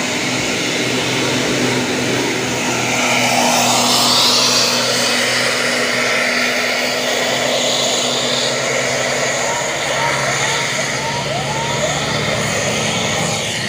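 Tour bus diesel engine running loud as the bus drives past climbing the road, with a steady low engine drone and rushing air noise that swells about four seconds in. A string of about five short rising chirps near the end.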